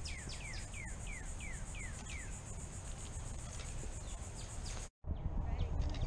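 A steady high insect trill, with a bird's repeated down-slurred whistles, about three a second, that fade out after about two seconds. A sudden cut near the end brings in a louder low rumble.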